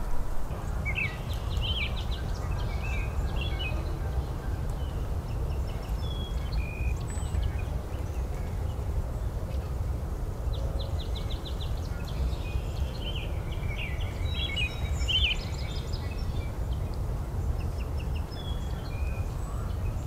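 Several songbirds singing in a spring forest: scattered chirps and short whistled notes, with a rapid trill that comes back three times, about a second in, near the middle and near the end. A steady low rumble runs underneath.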